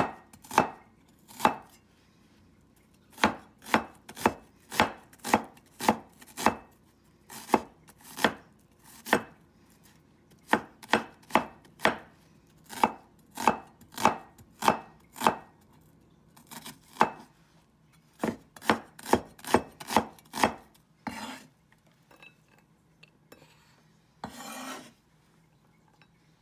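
Chinese cleaver chopping an onion on a wooden cutting board: sharp knocks about two a second, in runs with short pauses. Near the end the chopping stops and there are a couple of short scrapes as the blade gathers the diced onion off the board.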